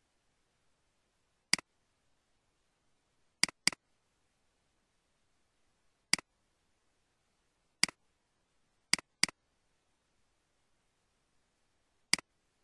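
Eight short, sharp computer clicks as folders are opened in Windows Explorer, some single and some in quick pairs, over near-silent background.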